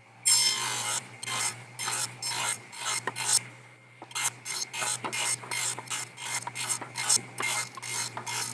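Table saw blade cutting a groove in the end grain of a pine board in repeated short passes: a run of quick rasping cuts, about two or three a second, over the steady hum of the saw, with a brief pause midway.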